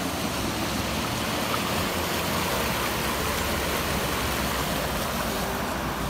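Steady rushing of a swollen, muddy river in flood, its fast turbulent water giving an even, unbroken noise.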